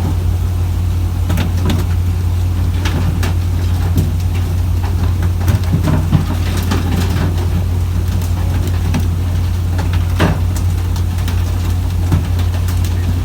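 Fishing boat's engine running with a steady low drone, with scattered sharp knocks and clicks over it.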